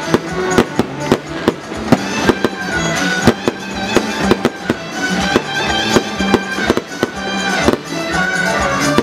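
A fireworks display: many sharp bangs and cracks in quick, irregular succession, several a second. Music plays underneath.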